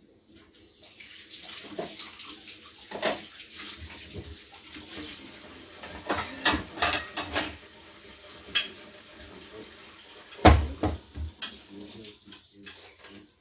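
Kitchen tap running steadily with dishes and cutlery clattering, and a heavy knock about ten and a half seconds in.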